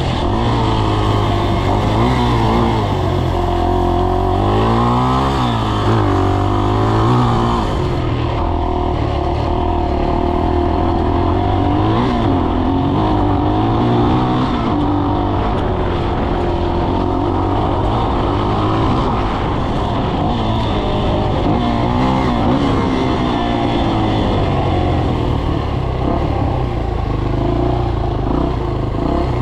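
Dirt bike engine running under load as it is ridden, its pitch rising and falling again and again as the throttle is opened and closed.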